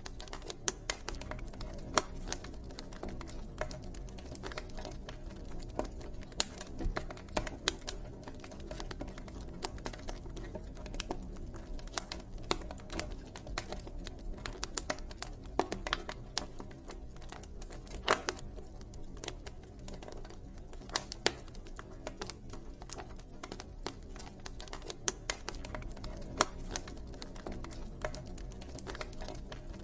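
Wood fire crackling in a fireplace: irregular sharp pops and snaps, some louder than others, over a steady low rumble of the burning fire.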